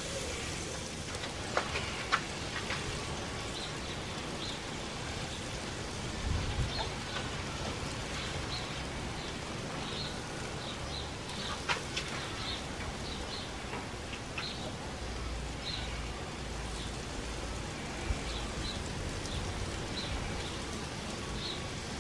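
Fish burgers and green asparagus sizzling steadily on a gas grill's griddle plate. A few sharp clicks of the turning utensil against the plate, the loudest about 2 seconds in and about 12 seconds in.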